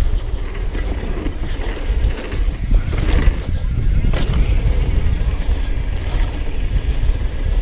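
Wind buffeting an action camera's microphone, with tyres rumbling over a dirt track and the mountain bike rattling as it rolls downhill; there is one sharper clack about four seconds in.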